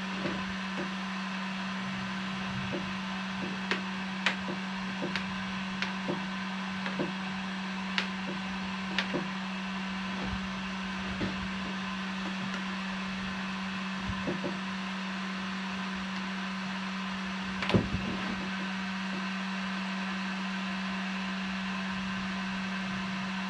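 Heat gun running with a steady hum while a Kydex sheet is heated and formed, with scattered light knocks and taps from handling it and one louder knock about 18 seconds in.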